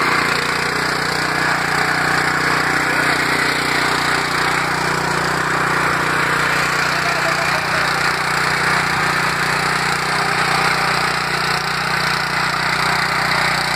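Honda petrol power weeder (mini tiller) running steadily under load, its small engine driving the rotary tines through the soil between crop rows.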